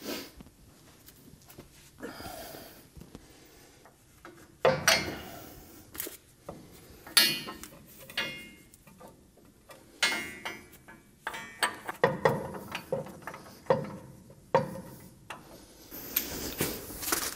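Irregular metallic clanks, knocks and scrapes of steel suspension parts and hand tools being handled while a front coil spring is fitted into its seat. A few knocks come in the first seconds; the clatter becomes frequent about five seconds in.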